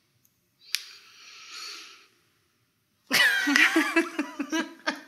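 A soft breathy huff about a second in, then women laughing, loud and bubbly, for about two seconds.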